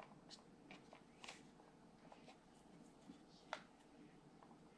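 Near silence with a few faint, scattered clicks and taps from handling Play-Doh and its small plastic tub and toy pieces; the strongest tick comes about three and a half seconds in.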